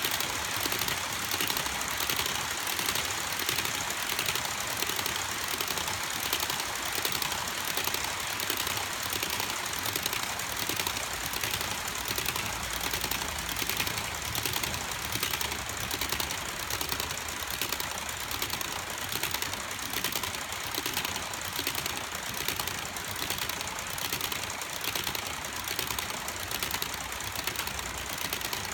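HO-scale covered hopper cars rolling past on model track, their wheels and trucks clattering in a steady run of evenly repeating clicks.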